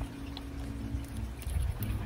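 Low steady background rumble under a couple of faint held tones, likely soft background music, with no distinct event.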